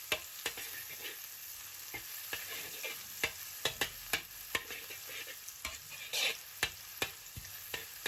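Minced scallion, ginger and garlic sizzling in hot peanut oil as they are stir-fried, with a spatula repeatedly scraping and tapping the pan in irregular sharp clicks.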